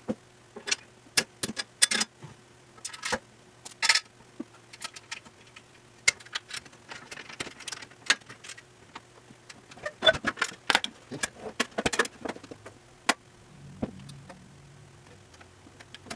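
Steel stand legs and loose nuts and bolts of a drum sander stand clinking and knocking as the stand is put together: irregular sharp metal knocks and jangles.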